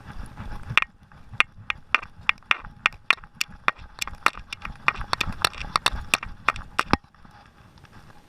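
Airsoft guns firing a rapid, irregular string of sharp single shots, about three or four a second, over a low rumble; the shooting stops abruptly about seven seconds in.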